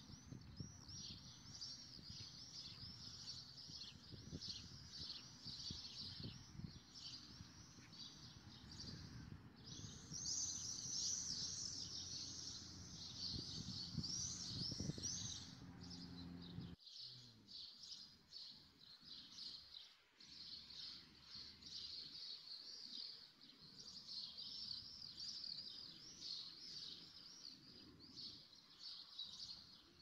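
Birds chirping busily throughout, a dense chorus of short repeated high chirps. Under it a low rustling rumble runs until it cuts off abruptly a little past halfway, leaving the birds alone.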